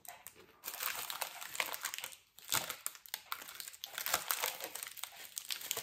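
Plastic snack wrapper crinkling as it is handled, in irregular crackles with two short pauses.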